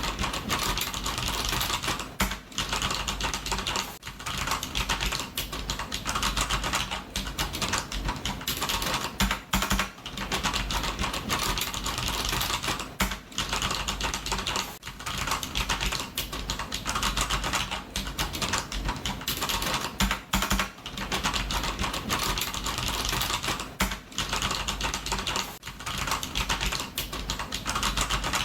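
Fast, continuous typing on a computer keyboard, a dense stream of key clicks broken by brief pauses of a fraction of a second.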